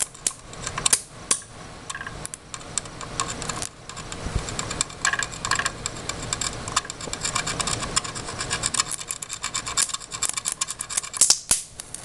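Crackling and sizzling of low-voltage DC arcing: a wire lead fed from a 13.8 V, 23 A power supply short-circuits motherboard components, making a dense, irregular run of sparking clicks. A few sharper pops stand out about a second in and near the end.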